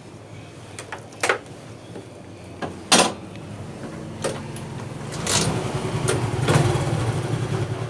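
Motorcycle engine running low and steady, growing louder about two-thirds of the way in, with a handful of sharp clicks and knocks, the loudest about three seconds in.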